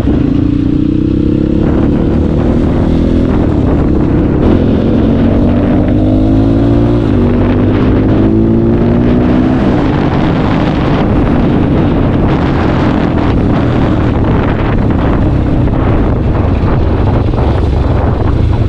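Bored-up Honda CRF single-cylinder trail bike accelerating on the road: the engine note climbs, drops at an upshift about three seconds in and again about seven seconds in, then settles to a steadier cruise with more wind and road noise. The bike has just had its worn primary and secondary gears replaced to cure a droning gear hum.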